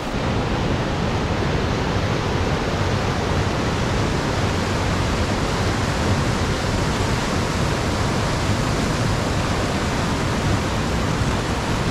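Steady, unbroken rushing of a fast-flowing mountain river, heaviest in the low end.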